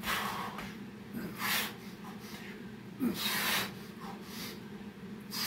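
A man breathing hard in the middle of a set of burpees: about four loud, forceful breaths roughly a second and a half apart, over a steady low hum.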